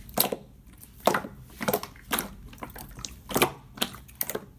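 Clear slime being squeezed and pressed by hand, making irregular sticky clicks and small pops.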